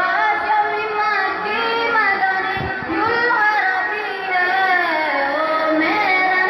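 A boy singing a naat, an Urdu devotional poem in praise of the Prophet, into a microphone over a PA. A single voice carries long, gliding melodic lines.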